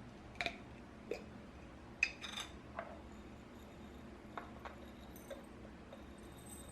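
A series of light clicks and taps, about eight spread over a few seconds, from small household objects being handled.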